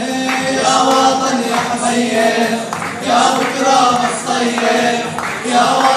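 A group of men singing a patriotic Arabic song together, with long held and gliding notes.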